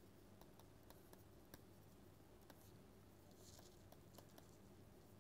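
Near silence with faint, irregular taps of a stylus writing on a tablet screen, and a soft scratch about three and a half seconds in, over a low steady hum.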